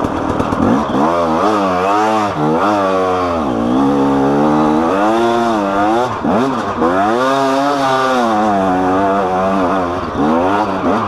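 KTM EXC two-stroke enduro motorcycle engine revving hard as it is ridden up a trail. Its pitch rises and falls repeatedly as the throttle is opened and closed, with brief drops about three and a half and six seconds in.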